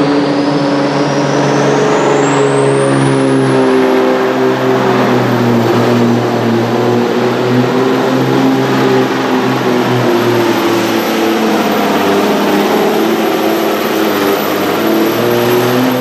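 DAF 95 pulling truck's diesel engine running at full throttle under heavy load as it drags the weight-transfer sled. A high whine climbs over the first four seconds and then holds steady.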